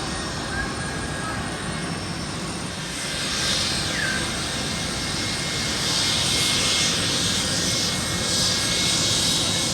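Airplane engine noise from an aircraft passing, swelling louder and hissier about three seconds in and staying loud.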